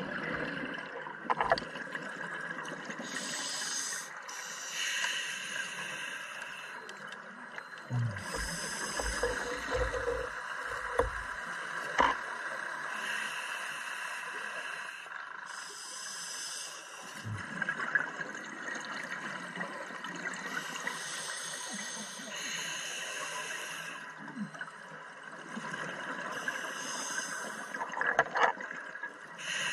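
Scuba diver breathing through a regulator underwater: a hissing breath and a rush of exhaled bubbles come round every few seconds. A few low knocks come about a third of the way in.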